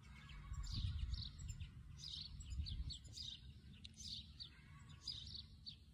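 Songbirds chirping: short, high, falling notes a few times a second, over a low rumble.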